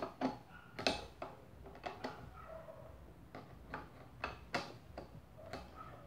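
Light irregular clicks and taps of a hand tool working the nuts on the metal hub of an Arno Fan 12 electric fan, about a dozen spread unevenly, as the nuts holding the front bracket are tightened.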